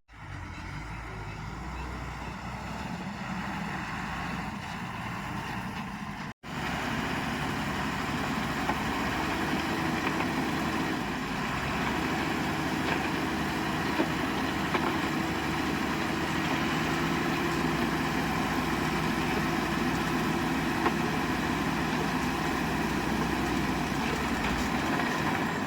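Heavy diesel engine running steadily at a low, even speed. The sound breaks off for an instant about six seconds in and comes back louder.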